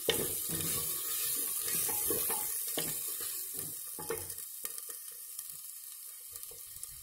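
Sliced onions frying in hot oil in a clay handi, a steady sizzle that slowly dies down, with a wooden spoon stirring them and now and then knocking against the pot.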